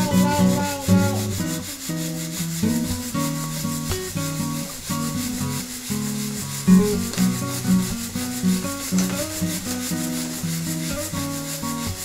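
Coffee beans rattling and sliding against each other and the wire mesh as a hand-held mesh roaster is shaken over charcoal, the beans just beginning to turn brown. Plucked-guitar background music plays throughout.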